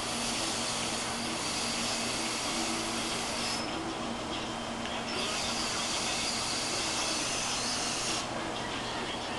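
A person vaping on a Phantom mod with a Double Cross atomizer: two long hissing draws of about three seconds each, with a quieter exhale of vapour between them.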